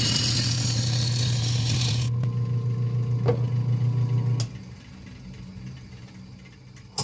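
Wood lathe running while a turning gouge cuts the spinning Sissoo (Indian rosewood) bowl blank, a loud hiss of cutting for about the first two seconds. The lathe then hums on steadily until it is switched off a little after four seconds in, and the sound drops away as the blank spins down. A short click near the end.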